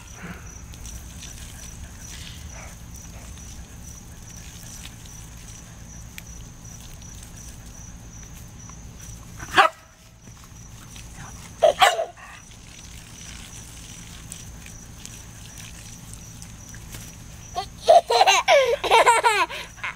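A Shetland sheepdog barks twice, once just under ten seconds in and once about two seconds later. Near the end a toddler squeals and laughs in a run of rising and falling calls.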